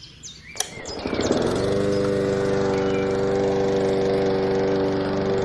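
A click, then an engine starting about a second in and settling into a steady, even running note.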